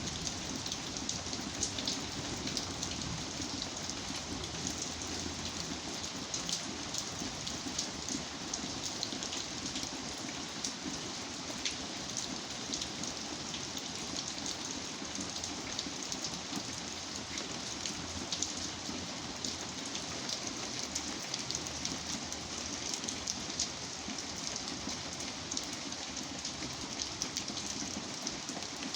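Steady rain falling, with many separate drops ticking sharply through the even hiss of the downpour.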